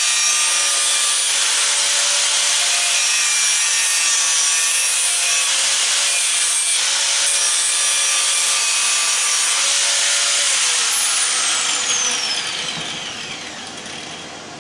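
Power tool running against metal to take a burr off the cut motor shaft. About eleven seconds in it is switched off and winds down with a falling whine.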